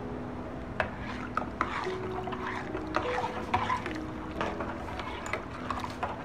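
A steel spoon stirring a thin mango drink in a metal pot: the liquid sloshes, and the spoon clinks against the pot's sides now and then, starting about a second in. Soft background music plays throughout.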